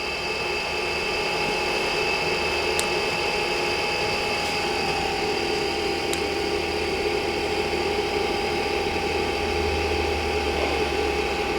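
Chinese diesel heater running, its fans giving a steady whine over a low hum, with a few faint clicks.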